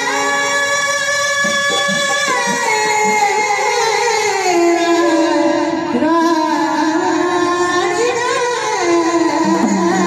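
A singer holding long, sliding notes of an Indian folk song, with light instrumental and tabla accompaniment.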